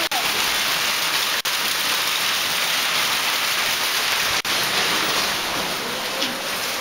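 Hailstorm: heavy rain and hail falling in a steady, even hiss, with three very brief dropouts in the sound.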